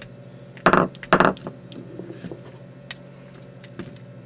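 Two loud knocks in quick succession about a second in, as a 1-inch neodymium sphere magnet and a hot-glued copper wire coil are pulled apart and the coil is set down on a tabletop, followed by a few faint clicks. A steady low hum runs underneath.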